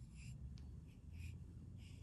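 A few soft swishes of a round bristle paint brush dipping into wet paint and dragging against the rim of the paint can, over a low steady hum.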